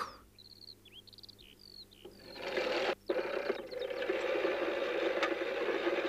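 A few faint bird chirps, then from about two seconds in a hand push lawnmower whirring steadily as it is pushed across the grass, with a brief break about halfway through.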